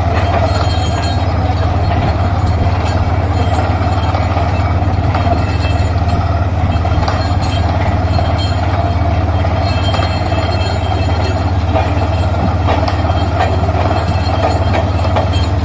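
Borewell drilling rig running steadily, a loud constant heavy mechanical drone with a deep hum underneath.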